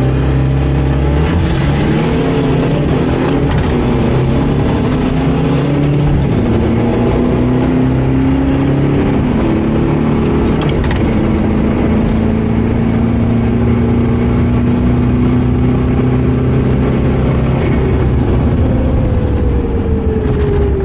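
A pickup's engine at full throttle through the gears, heard inside the cab. Its pitch climbs and drops back at about three gear changes, holds steady at speed, then falls away near the end as it slows, over constant wind and tyre noise on dirt.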